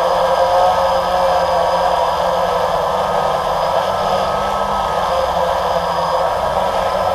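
Camera drone's motors and propellers whirring steadily, picked up close by the camera's own microphone.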